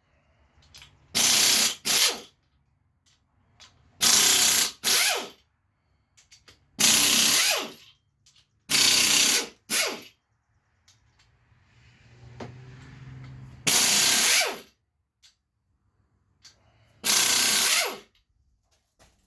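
A 3/8-inch Blue-Point air impact wrench runs in six short bursts of about a second each. It is loosening the engine's main bearing cap bolts.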